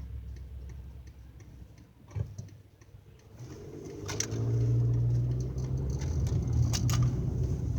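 A car's turn signal ticking steadily, then the car's engine hum builds from about three and a half seconds in as it pulls away.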